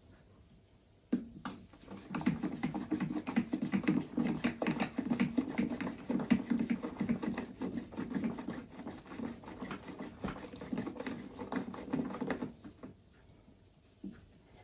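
Hands kneading and squeezing a soft dough or mixture in a plastic bowl: a fast, irregular run of soft wet strokes that starts about a second in and stops about two seconds before the end.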